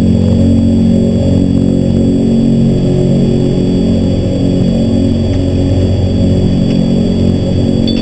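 Transall C-160's two Rolls-Royce Tyne turboprops running steadily on the ground, heard from inside the cockpit: a deep, even propeller drone with thin high steady whines above it.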